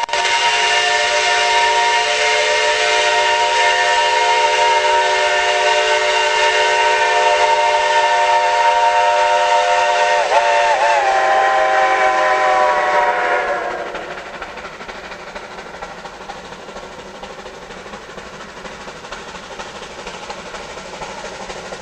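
Steam locomotive's chime whistle blowing one long blast of several notes at once. The pitch wavers twice about ten seconds in, then sags and the whistle cuts off, leaving a softer steady steam hiss.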